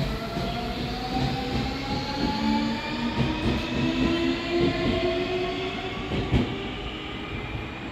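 An electric train running. Its motor whine climbs slowly and steadily in pitch, as when the train picks up speed, over the running noise of the train. A single sharp clack comes about six seconds in.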